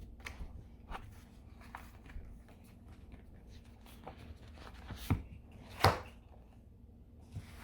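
Photo cards and album packaging being handled by hand: scattered soft taps and light rustles, with two sharper taps about five and six seconds in, the second the loudest.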